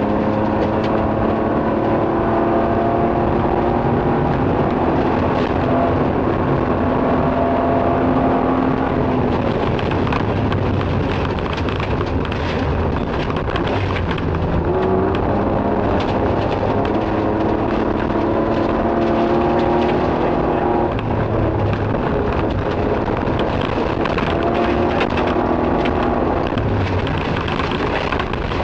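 Nissan Skyline rally car's engine running hard, heard from inside the cabin, its pitch climbing and breaking off every few seconds with gear changes. Gravel rattles and crackles against the underbody, most thickly in the middle stretch.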